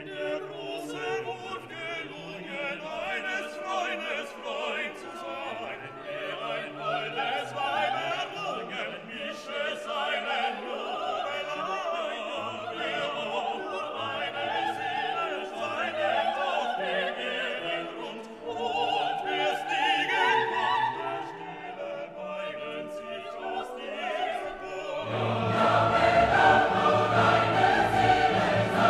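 Classical music soundtrack: operatic singing over an orchestra, swelling fuller and louder near the end.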